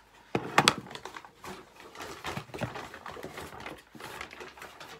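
Brown paper shopping bag rustling as hands rummage inside it and pull items out, with irregular clicks and knocks, the loudest about half a second in.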